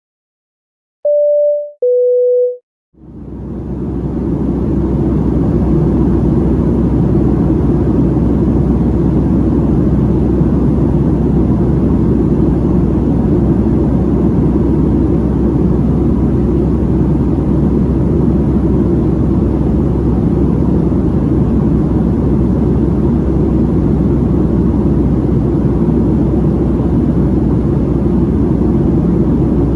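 A two-note high-low chime of the Boeing 737 cabin, then the steady low rumble and hiss of the Boeing 737-700's cabin in flight fades in about three seconds in and holds.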